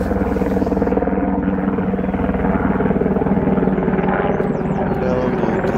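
Steady drone of an engine, held at a constant pitch with a fast pulsing underneath.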